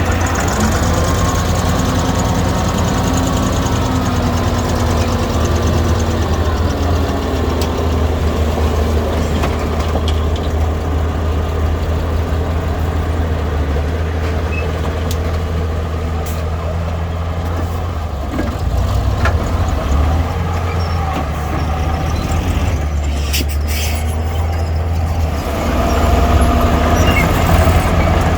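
Diesel earthmoving machinery running steadily, its engine pitch shifting with load. There are a few sharp clanks about 23 seconds in, and the engine gets louder near the end.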